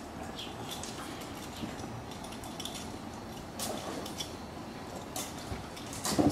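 Scattered light metallic clinks of rigging and climbing hardware over a steady outdoor background, with a louder knock at the very end.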